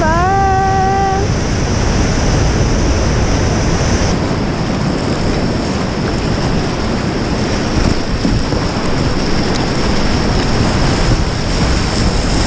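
Loud, steady rush of whitewater rapids on a river at high spring flow, heard from water level with spray and wind hitting the microphone. A short rising pitched call sounds in the first second.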